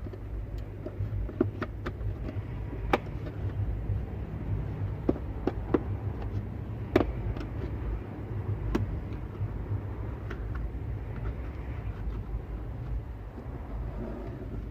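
Scattered sharp clicks and taps from plastic dash trim and wire being worked, as a microphone cable is pushed behind the pillar and console panels with a plastic pick tool. A steady low rumble runs underneath.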